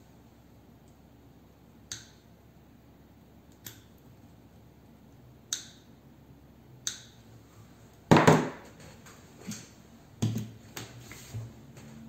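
Side cutters snipping the leads on a small circuit board: four sharp clicks, roughly one every second and a half. Then, from about two-thirds of the way in, louder knocks and rattles of tools being set down and picked up on a wooden table, the loudest just after the clicks stop.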